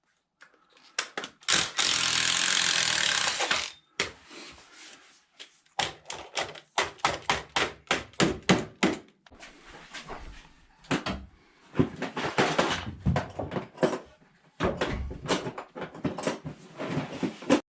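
A power drill runs for about two seconds driving a screw with a Phillips bit, then comes a series of sharp knocks on wood in several quick runs of about three to four a second.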